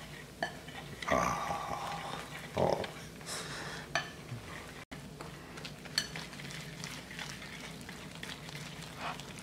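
Wire whisk stirring a thick flour-and-beer batter in a ceramic bowl, with irregular light clicks and scrapes of the wires against the bowl.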